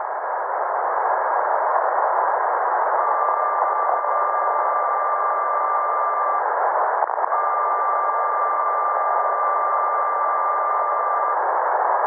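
Automatic alarm signal from a weak emergency transmitter, received on a ship's radio tuned to the 500 kc/s distress frequency: a steady Morse tone keyed in long dashes of about four seconds with about a second between them, under loud receiver hiss. The first dash begins about three seconds in and a second follows after a one-second gap; the signal is sent ahead of a distress call to set off the alarm bells on ships in range.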